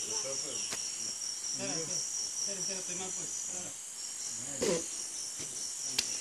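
Steady high-pitched drone of tropical forest insects, crickets or similar, with faint voices talking in the background, one briefly louder about three quarters of the way through, and a sharp click near the end.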